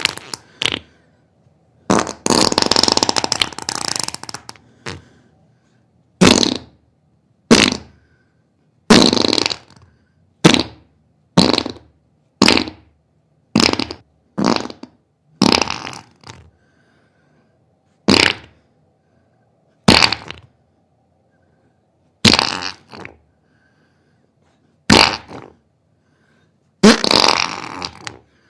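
A series of farts, one after another with short silences between: mostly short blasts about one to two seconds apart, with a few longer, drawn-out ones, one about two seconds in and another near the end.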